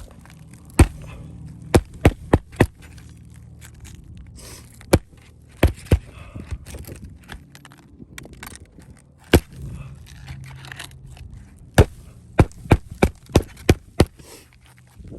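Hammer driving roofing nails to refasten an asphalt shingle: sharp blows, some single and some in quick runs of three to six, with pauses between.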